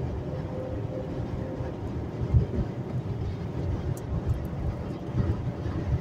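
Engine and road noise inside the cabin of a 2011 Acura TL with a 3.5-litre V6, cruising at highway speed: a steady low rumble with uneven low pulses and a faint steady hum.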